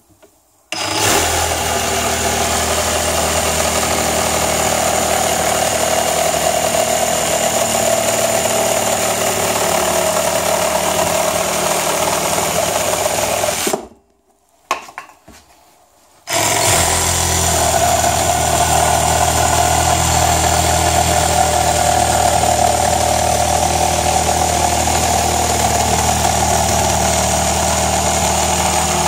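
Meec 18 V battery-powered reciprocating saw, fitted with a new Bosch blade, sawing through a 120 x 45 mm wooden stud. It runs steadily in two long cuts of about thirteen seconds each, stopping for a couple of seconds in between.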